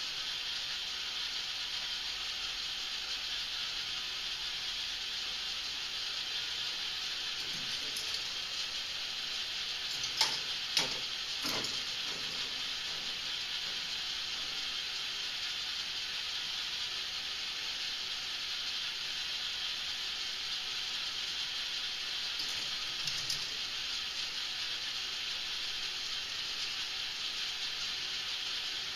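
K'nex marble-run machine running: a steady hissing whir from its motorized ball lift and balls rolling along plastic track, with a few sharp clacks of balls hitting parts, a quick cluster about ten seconds in and two more near the end.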